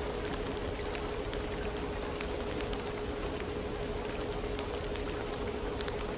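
Steady rain with scattered drop ticks, over a constant tone held at one pitch.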